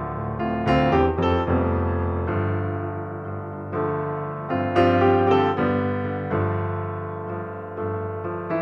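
Background piano music, a slow piece of sustained chords and melody notes.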